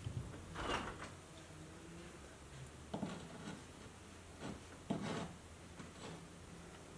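Tools being handled at a workbench while screws are worked out of a persimmon-wood club head: four short scrapes and knocks, about a second in, at three seconds and twice near five seconds, over a low steady hum.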